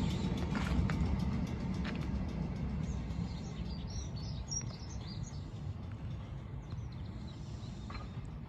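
Outdoor ambience: a low rumbling noise that slowly fades away, with small birds chirping high and briefly in the middle.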